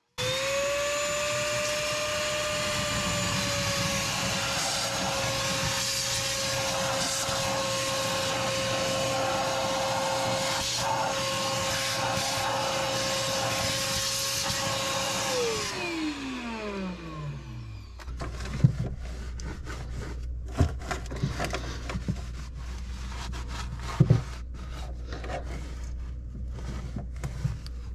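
Shop vac running with a steady whine, its nozzle vacuuming up water in a sailboat's bilge around the speed transducer. About fifteen seconds in it is switched off and winds down, its pitch falling over a couple of seconds. A scatter of knocks and clicks follows.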